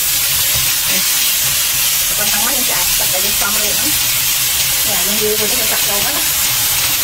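Sliced beef sizzling with a steady hiss in a hot nonstick wok as it is stir-fried with a spatula.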